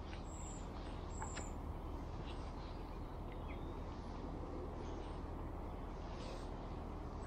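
Outdoor ambience by the water: a steady low background rumble, with a few short, high bird chirps in the first second and a half.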